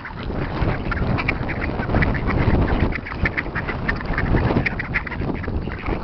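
A flock of ducks quacking, many short calls overlapping, over a steady low rumble.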